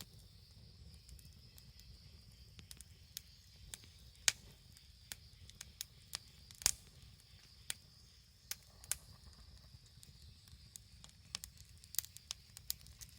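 Wood campfire crackling, with irregular sharp pops, the loudest about four and about seven seconds in, over a steady low rumble.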